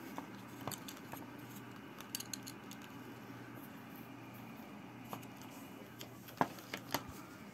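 Small clicks and taps of fingers handling a circuit board in a small plastic box and its wires, scattered through, with three sharper clicks close together near the end, over a steady low hum.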